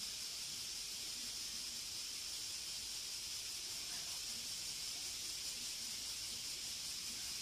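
Steady high-pitched hiss that does not change, with no distinct events.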